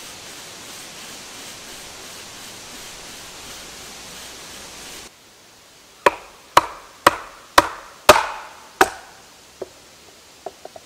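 A steady hiss that cuts off abruptly about halfway through, then six sharp wooden knocks about half a second apart as a hatchet is driven into an upright birch log with a wooden mallet, followed by a few lighter taps.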